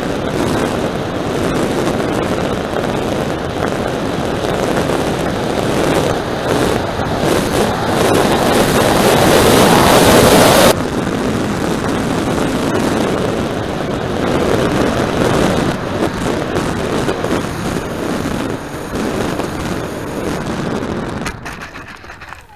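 Onboard audio of a small radio-controlled plane in flight: a steady rush of wind over the airframe and microphone mixed with the propeller. It builds until about halfway, then drops suddenly, and near the end it falls away with a few knocks as the plane touches down in grass.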